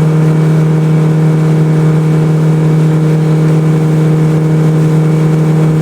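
Motorboat engine running steadily at an even pitch, with hiss from the hull moving through the water.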